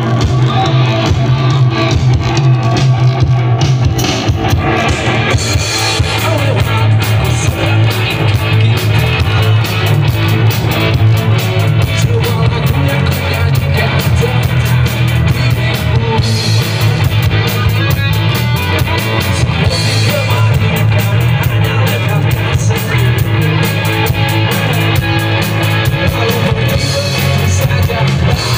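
Live rock band playing loudly through PA speakers: electric guitars and a drum kit over a heavy bass, with a singer on a handheld microphone.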